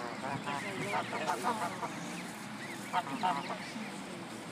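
Canada goose honking angrily: a run of quick honks in the first two seconds and another short run about three seconds in.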